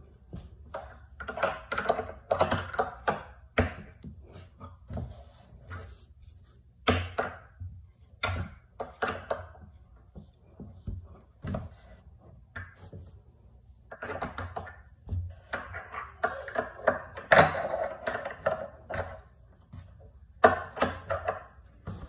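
Small metal spanner clicking and scraping against a metal dowel bolt as it is turned, screwing the dowel into a particleboard bed panel. The clicks come in quick bursts with short pauses between.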